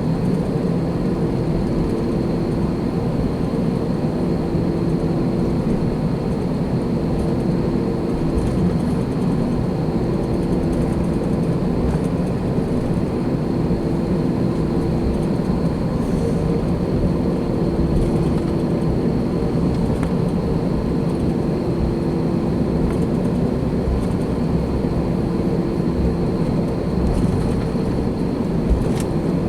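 Cabin noise of an Airbus A321-213, its CFM56 jet engines running steadily at high power, heard from inside the cabin. The noise is a constant rush with a low steady hum and a faint high whine.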